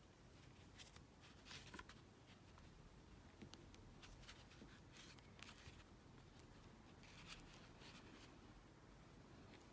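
Near silence with faint, scattered rustles and small ticks of a crochet hook working yarn.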